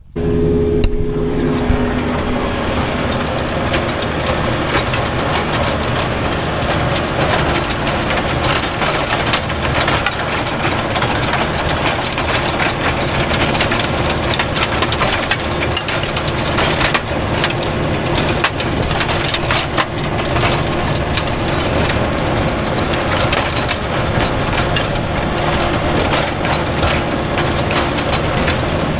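John Deere 4052R compact tractor's diesel engine running under load while its rear-mounted rototiller churns dry sod and soil. The tines make a constant crackling clatter over the steady engine drone.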